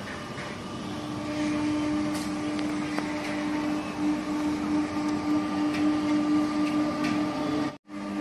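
Steady machine hum: one low, even tone with fainter higher tones, coming in about a second in over a background of outdoor noise; the sound drops out briefly near the end.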